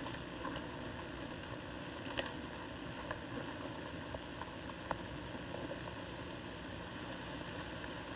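Elk browsing in low conifer growth: a few faint snaps and crackles, about two, three and five seconds in, over a steady hiss.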